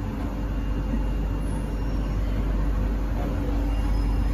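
Interior of a Kawasaki & CSR Sifang C151A metro train car: a steady low rumble with a faint steady electrical whine.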